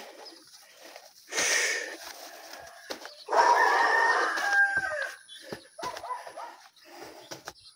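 A rooster crows once, a little over three seconds in: a loud call of about a second and a half that ends in a falling note. A short burst of hiss comes about a second and a half in.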